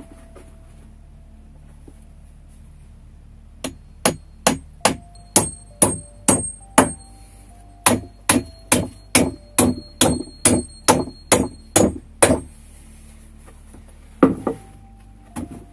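Hammer driving nails into the wooden supports of a plank bench: a fast run of about twenty blows, two to three a second, starting about three and a half seconds in with a short break midway, each blow with a slight metallic ring, then two more knocks near the end.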